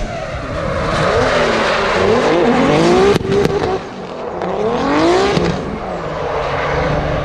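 Drift car engine revving hard and dropping back repeatedly through a slide, its pitch climbing steeply twice, over the hiss of spinning tyres.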